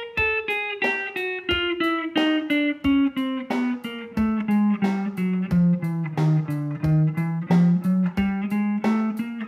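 Ibanez electric guitar through a Marshall amp playing a chromatic scale exercise at 90 bpm: single alternate-picked notes, two to a beat, stepping down one semitone at a time. The run reaches its lowest notes about six to seven seconds in, then turns and climbs back up.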